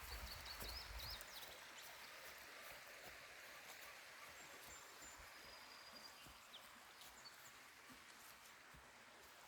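Faint songbird chirps and a few thin, high whistled notes over the soft, steady hiss of flowing water, with a low rumble in the first second.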